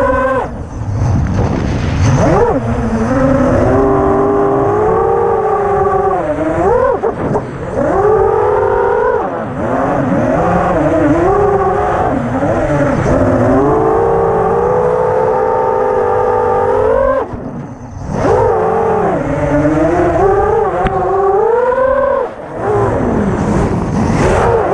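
6-inch FPV racing quadcopter's brushless motors and propellers whining, heard from its onboard camera, the pitch rising and falling as the throttle changes. The sound drops briefly about seven seconds in, again around eighteen seconds and once more near twenty-two seconds as the throttle is chopped.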